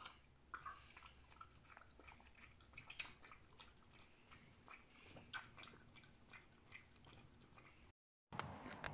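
Shiba Inu lapping milk from a stainless steel bowl, faint, with irregular wet clicks of the tongue. After a brief dropout near the end, a louder stretch of outdoor noise with sharp clicks takes over.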